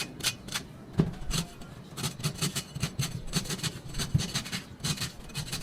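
Machete chopping and scraping at a coconut in a quick series of short strokes, about three a second, with a heavier knock about a second in.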